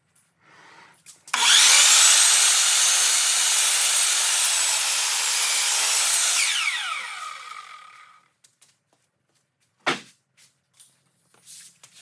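Sliding compound miter saw starting up about a second in and cutting through a wooden board for several seconds, then its blade spinning down with a falling whine once the trigger is released. A single sharp knock follows near the end.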